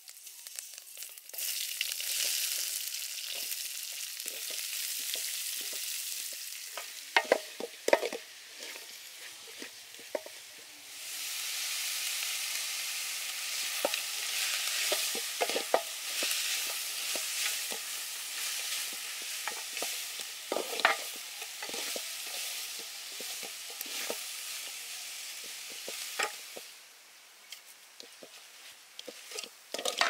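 Hot oil sizzling in a metal pot with curry leaves and a pandan leaf, then a louder, steady sizzle from about eleven seconds in as sliced red onions with chili powder fry. A spoon knocks and scrapes against the pot several times while stirring, and the sizzle drops off a few seconds before the end.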